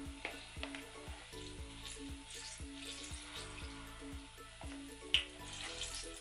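Hot oil sizzling as spoonfuls of banana panikeke batter deep-fry in a stainless pot, with a sharp click about five seconds in. Background music with a steady beat plays underneath.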